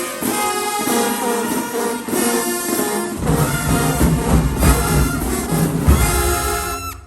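Marching band playing: brass over percussion, with low brass and bass drums coming in heavily about three seconds in. The music cuts off abruptly near the end.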